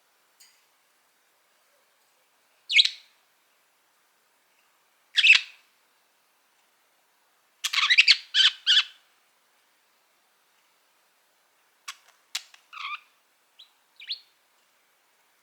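Budgerigar chirping in short, separate calls: two single chirps, then a quick run of four, then softer clicks and short chirps near the end.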